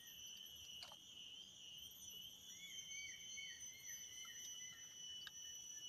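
Faint insect chorus, a steady high-pitched trill, with a run of quick chirps about two and a half seconds in and a single light click just under a second in.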